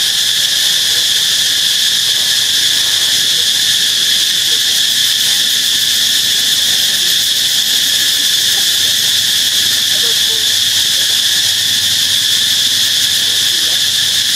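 Steady, loud chorus of insects, a continuous high-pitched drone that holds without a break.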